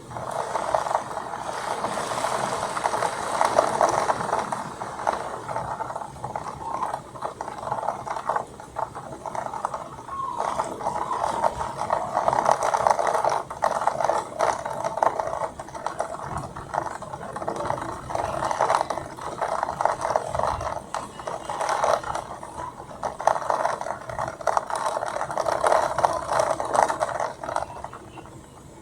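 Heavy storm precipitation hitting a hard surface: a dense stream of small impacts that starts abruptly and stops near the end.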